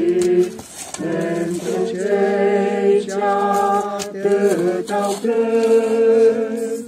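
A slow Romanian hymn sung without instruments, the voices holding long notes from phrase to phrase with a brief breath pause about a second in.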